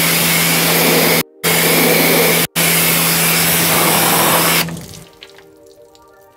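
Pressure washer spraying a rinse over a car's body: a loud, steady hiss of spray over a low, steady hum, broken twice by very short gaps and stopping about three-quarters of the way through. Then soft background music and water dripping.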